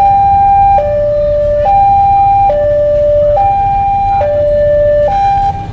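Railway level-crossing warning alarm sounding its two-tone signal, a higher and a lower note taking turns a little under once a second. It cuts off near the end as the crossing reopens and the barrier lifts.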